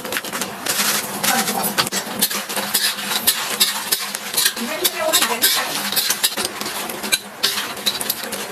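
Cooking utensil clinking and scraping against a pan as food is stirred, with rapid, irregular knocks.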